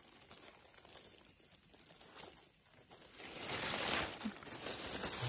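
Outdoor woodland ambience with a steady high insect drone; from about three seconds in, a louder rustling noise sets in over it.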